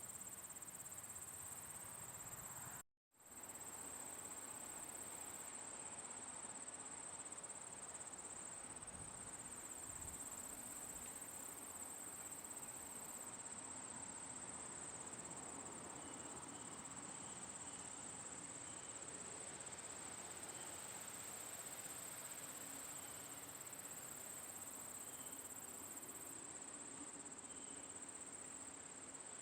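A chorus of crickets chirping in a steady, high-pitched band over soft background hiss. The sound cuts out completely for a moment about three seconds in, then resumes.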